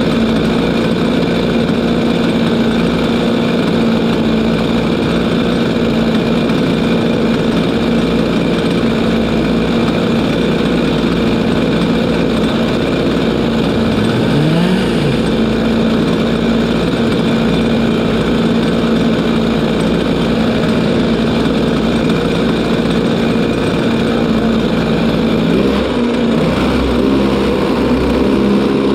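Racing kart engine idling steadily, a new engine being run in. There is a brief rise and fall in pitch about halfway through and a change in pitch near the end.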